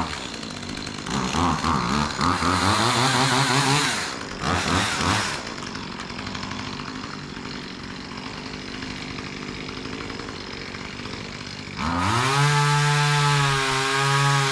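Two-stroke chainsaw revved up and down a few times, then dropping to a steady idle; about twelve seconds in it opens up to full throttle and holds there.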